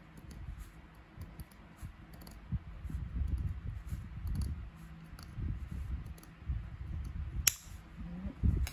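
Scissors snipping through plastic canvas mesh, with handling rustle and small clicks, and one sharp snip near the end.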